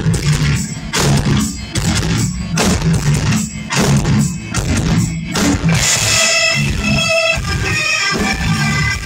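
Live rock band playing loudly through a club PA: distorted guitar and drums hammer out a stop-start riff. About two-thirds of the way through, the riff gives way to held, ringing notes over a thinner backing.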